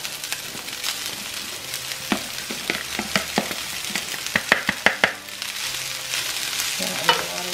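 Cold cooked rice sizzling as it goes into a hot nonstick pan of fried onions and is stirred with a plastic spoon. The spoon clicks and scrapes against the pan and bowl throughout, with a quick run of clicks about four to five seconds in.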